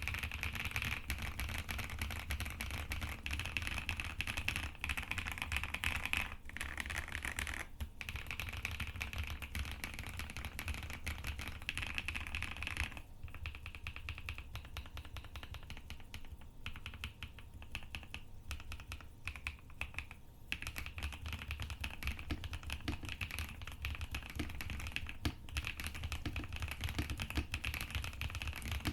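Fast, continuous typing on a custom Weikav WK75 mechanical keyboard with Akko Cream Yellow linear switches and Cherry-profile keycaps. The keystrokes thin out and turn softer for several seconds in the middle, then pick up again.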